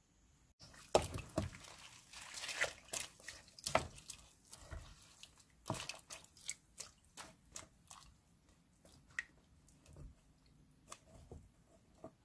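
Pieces of radish, napa cabbage and green onion being stirred and lifted in the brine of nabak water kimchi: irregular wet squishes, drips and small splashes, busiest in the first half.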